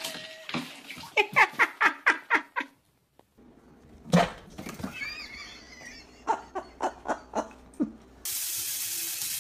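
A series of short, rapid sounds, then a tap running steadily into a bathroom sink, which starts abruptly near the end.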